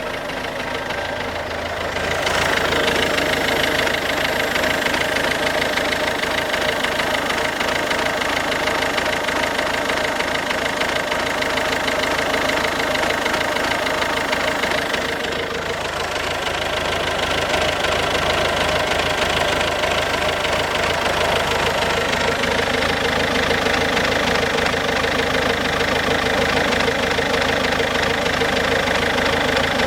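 Ford Focus C-Max 1.6 TDCi four-cylinder diesel engine running with a knocking sound, the bad sound the owner takes for an engine problem. It gets louder about two seconds in and dips briefly midway.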